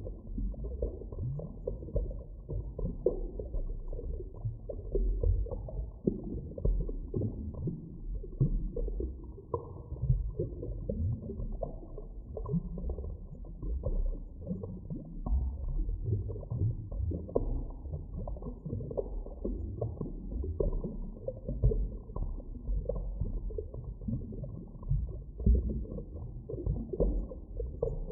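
Muffled underwater ambience: a low, uneven rumble with constant small gurgles and swells, with nothing heard above the low and middle range.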